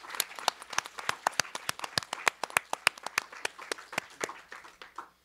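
Applause from an audience and panel, with sharp individual claps standing out over the general clapping, dying away near the end.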